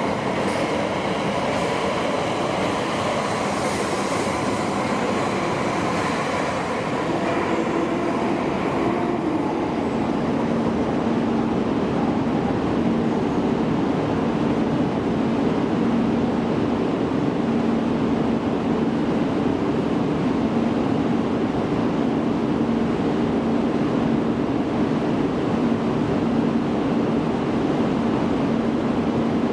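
Tohoku Shinkansen train running: a steady rolling rumble. Faint higher whining tones fade out over the first several seconds, and a low steady hum comes in about ten seconds in.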